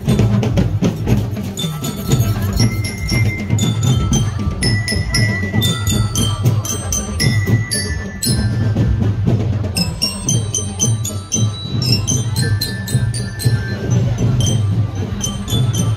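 Marching band playing: drums beating a steady rhythm under a ringing melody on bell lyres (marching glockenspiels).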